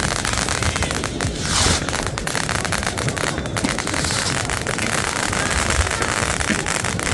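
Fireworks going off in dense, continuous crackling and popping. A hissing rush rises briefly about a second and a half in.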